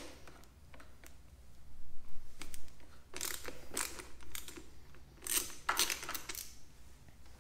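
Wrench working the 12 mm bolt on an aftermarket MRD muffler's mounting bracket: metallic clicking and scraping in several short spells, the loudest about two seconds in.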